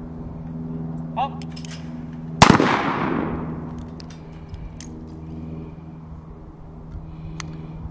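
A single .410 shot from a Thompson Contender single-shot pistol about two and a half seconds in; the report echoes for about a second. A steady low hum runs underneath.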